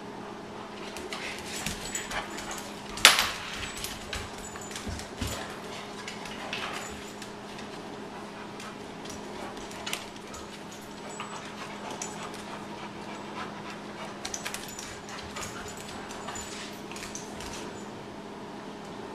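Two dogs, a Shar-Pei and a white short-haired dog, play-wrestling on a tile floor: a scatter of sharp clicks and scuffs from claws and jaws, with one loud knock about three seconds in. A steady low hum runs underneath.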